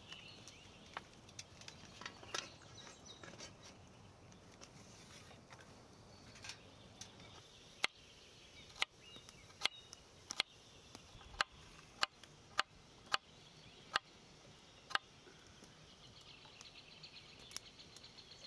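Kitchen knife slicing a carrot on a wooden cutting board: about ten sharp chops, a little over one a second, starting about halfway through and then stopping, with lighter knife taps earlier. Faint outdoor background throughout.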